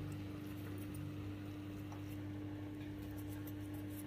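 A steady low hum under faint room noise.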